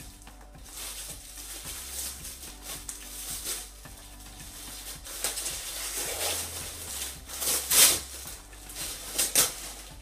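Plastic wrapping crinkling and rustling as a small package is unwrapped by hand, in irregular crackles, loudest near the end.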